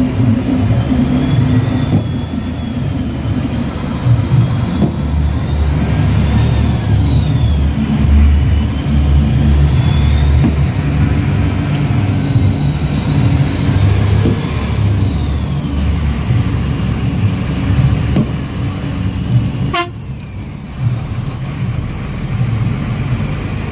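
Congested road traffic: vehicle engines running with a heavy low rumble and car horns tooting.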